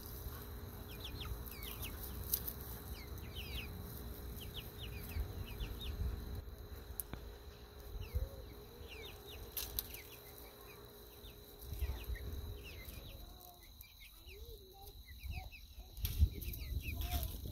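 Wind rumbling on the microphone, with small birds chirping over and over in the background and a few low calls now and then.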